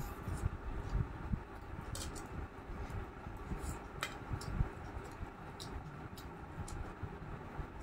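Sounds of eating by hand: scattered soft clicks and smacks from chewing and from fingers working rice on a steel plate, one sharper click about four seconds in, over low dull thumps.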